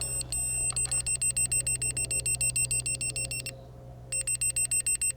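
Laser level receiver beeping rapidly, a high electronic beep about seven times a second, pausing briefly about three and a half seconds in and then starting again, as it is held in the beam to read level. A low steady hum runs underneath.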